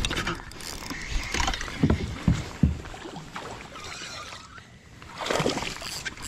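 Movement in a plastic fishing kayak: a few short knocks against the hull about two seconds in, with water sloshing and splashing along its side in two spells, at the start and again after about five seconds.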